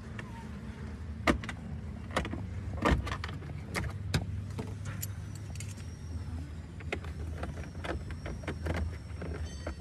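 Irregular clicks and knocks of hard plastic truck dashboard parts being handled and fitted around the instrument cluster, over a steady low hum.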